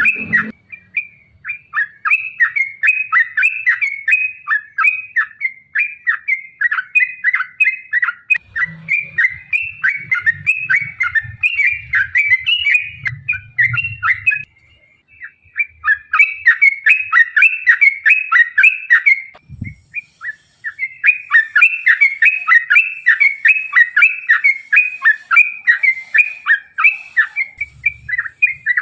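Yellow-vented bulbul (trucukan) singing a long, fast chattering song of short up-and-down notes, about three or four a second. It breaks off twice briefly, about halfway through and again a few seconds later.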